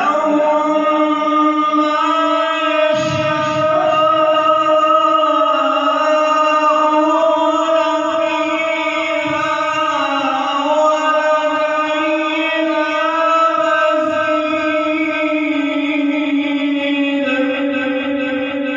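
A man chanting Quran recitation in the melodic tajweed style, one long held and ornamented phrase sung into a microphone, stepping down in pitch near the end.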